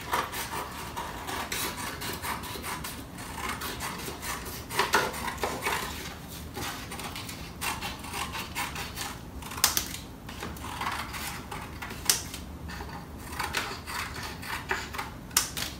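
Scissors snipping through laminated ceramic transfer paper with its plastic cover coat: a run of irregular small snips and paper rustling, with a few sharper snips now and then.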